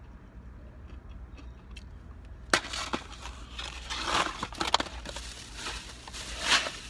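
Food wrappers and packaging crinkling and rustling as they are handled and crumpled, starting sharply about two and a half seconds in, with several louder crackles.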